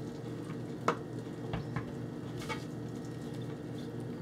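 A few light clicks and knocks as a plastic whetstone case is handled at a kitchen sink, over a steady low hum.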